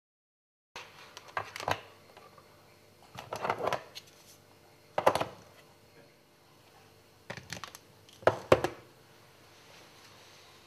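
Sharp clicks and knocks of hard plastic in five short clusters, as a cordless screwdriver's plastic case and charging cradle are handled.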